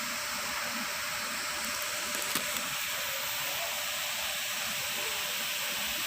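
Steady hiss with no clear pitch, with a couple of faint clicks about two and a half seconds in.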